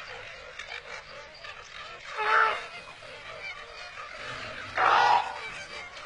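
An animal calling loudly twice, once about two seconds in and again about five seconds in, over a steady background hiss.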